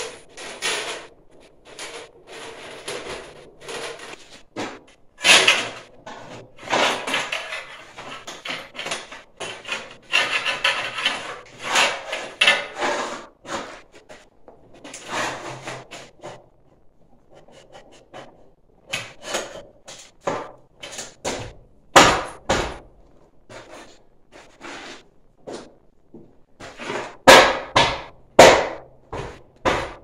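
Corrugated stainless steel tubing being forced by hand into a metal stove drum: irregular rattling and scraping of the ribbed metal tube against the drum. Later come sharp metal knocks, the loudest near the end.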